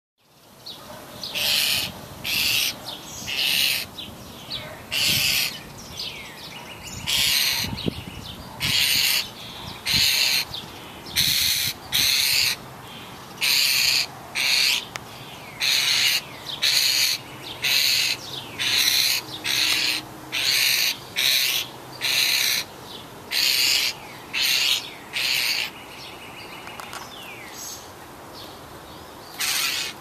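Fledgling European starling giving harsh, rasping begging calls to be fed by a parent, each about half a second long and repeated about once a second. The calls pause a few seconds before the end, then come once more.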